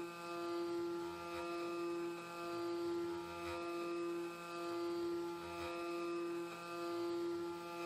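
Foxalien WM3020 CNC spindle turning a 5 mm three-flute end mill at 10,000 rpm while it mills a pocket in aluminium on an adaptive toolpath. The spindle's steady whine swells and dips about every two seconds as the cutter works in and out of the cut.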